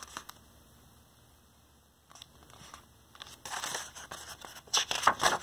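Paper pages of a picture book being handled and turned: a few short rustling, scraping bursts in the second half, after a near-quiet stretch.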